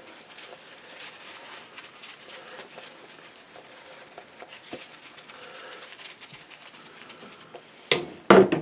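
Paper towel rubbing and wiping across a paint palette: faint, irregular rustling and scrubbing, then a few loud knocks of things being handled near the end.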